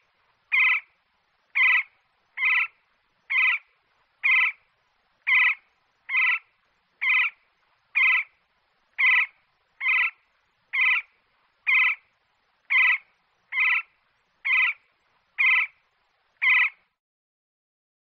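Woodpecker calling: a short, single call note repeated steadily about once a second, stopping near the end. These are vocal calls, not drumming on wood.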